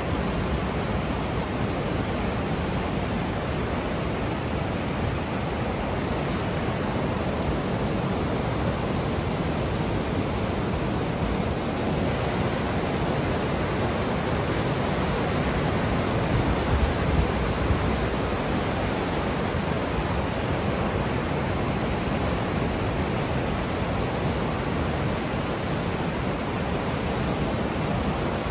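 Niagara River's class 6 whitewater rapids rushing in a steady, unbroken roar of churning water.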